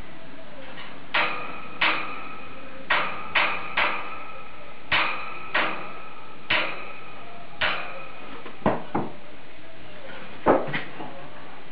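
About a dozen sharp metallic taps at irregular intervals. Each rings briefly at the same pitch, and the last few, near the end, are duller knocks.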